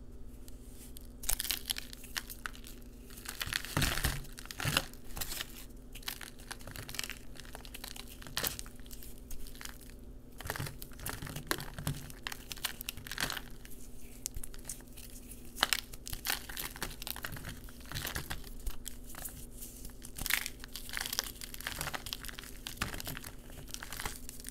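A dry, chalky, crumbly block broken apart by hand and its pieces crushed between the fingers: irregular crunching and crumbling, in uneven clusters.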